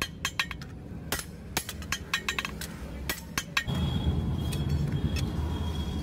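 Hand hammer striking a billhook blade of leaf-spring steel on an anvil: quick, irregular runs of ringing metallic blows for about three and a half seconds. The blows then stop, leaving a steady low rumble.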